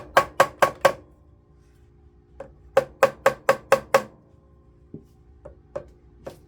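Quick runs of sharp hammer strikes on metal, about five a second: a burst of five at the start and six more around the middle, with a few single taps after. Each strike leaves a short metallic ring.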